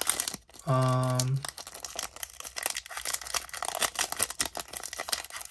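Foil booster-pack wrapper crinkling and rustling in the hands as the pack is opened and the cards are slid out. About a second in there is a brief, steady hummed voice sound.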